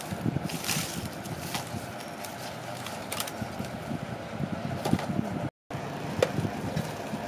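Outdoor background hiss with a faint steady hum, over light rustling and small knocks of herbs, limes and chilies being handled. The sound cuts out for a moment about five and a half seconds in.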